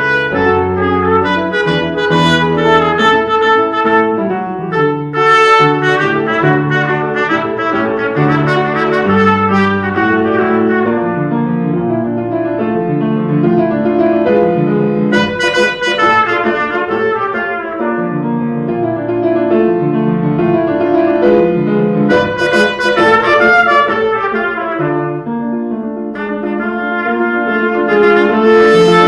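Trumpet and piano playing a tarantella, the trumpet leading with quick runs of notes over the piano accompaniment.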